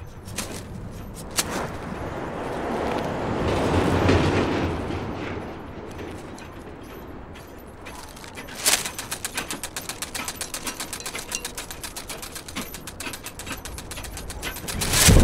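Film sound effects: a swelling rush of noise that peaks and fades, then a sharp click followed by fast, even clicking, with a loud low boom coming in at the very end.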